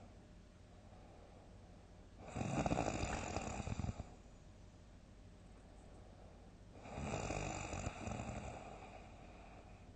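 A sleeping person snoring loudly: two big rasping snores about four and a half seconds apart, each lasting under two seconds, with quiet breathing between them.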